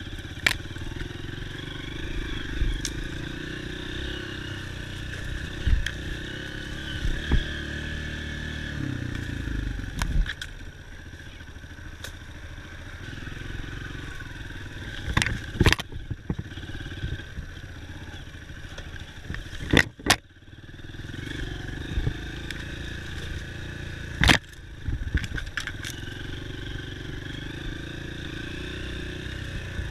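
Dirt bike engine running steadily while riding, with several sharp knocks and clatter. The engine sound falls away briefly about twenty seconds in, then picks up again.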